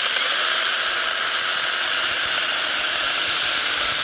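Small electric saw switched on and running steadily at full speed, a loud, even hiss-like motor noise.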